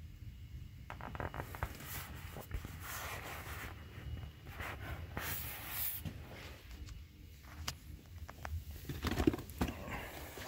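Hands rubbing and handling inflatable vinyl pool toys and a cardboard box: irregular soft rustling and brushing, with a few sharper knocks near the end.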